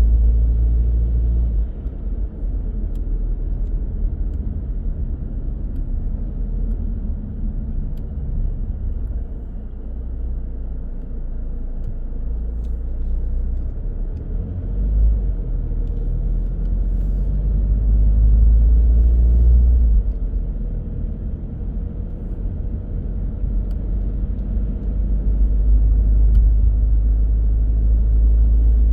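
A car driving on the road: a steady low rumble of road and engine noise that swells louder about two-thirds of the way through and again near the end.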